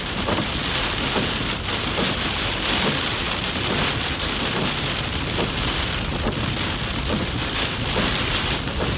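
Heavy rain pelting a car's windshield and roof, heard from inside the moving car as a steady, dense hiss.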